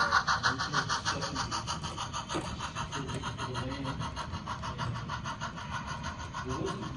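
Sound of an HO scale model steam locomotive: a fast, even chuffing of about seven beats a second that slowly fades as the locomotive pulls away, with the passenger coaches rolling over the track.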